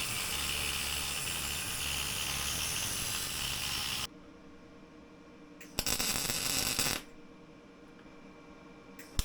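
Welding arc crackling and hissing in bursts of tack welding on the rack bracket. A long burst stops about four seconds in, a short one comes about six seconds in, and another starts at the very end.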